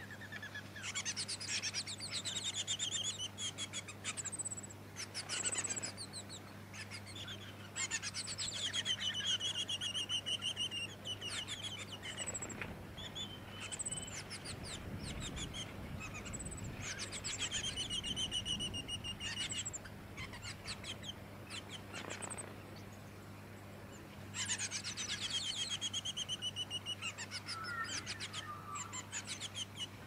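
Black-backed fairy-wren singing: high, rapid reeling trills in phrases of a few seconds, repeated one after another with a short pause a little past the middle.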